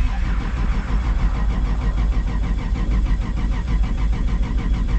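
Starter cranking a 2JZ-GTE VVTi inline-six in a hard-starting car, turning the engine over with a fast, even rhythm that starts suddenly. The owner blames the poor starting on bad wiring from a previous owner.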